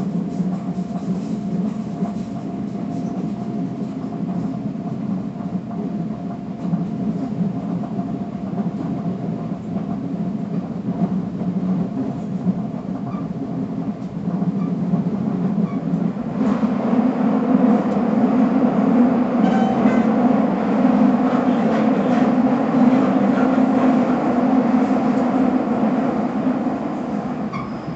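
Steady running noise of an FGC 112-series electric train heard from inside the carriage: an even rumble of wheels and motors with a faint hum. About 16 seconds in it grows louder and fuller, as when the train runs into a tunnel.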